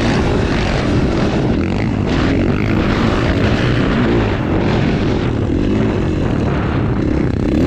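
KTM 450 single-cylinder four-stroke dirt bike engine running hard, its revs rising and falling, with a steady rush of wind over it.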